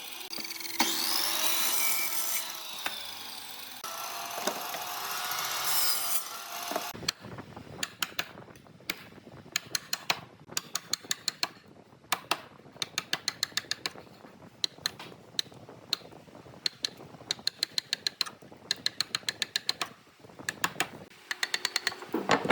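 A power tool running against wood for the first several seconds, then cutting off. After that comes a long series of sharp, rapid clicks or taps in quick runs.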